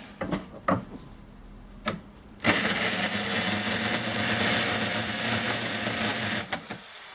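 Power drill started about two and a half seconds in and run steadily at speed for about four seconds, drilling out a bracket hole to a larger size, then released and starting to wind down with a falling whine near the end. A few light knocks come before it starts.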